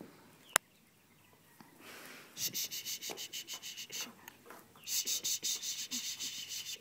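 A hand rubbing a horse's tongue: quick rhythmic rubbing at about six strokes a second, in two spells of a second or two each. A single sharp click comes about half a second in.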